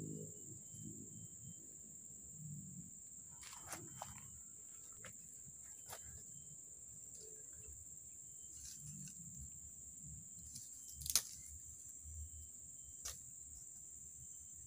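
Steady high-pitched drone of forest insects, like crickets or cicadas, with a few scattered sharp clicks and knocks, the loudest about eleven seconds in.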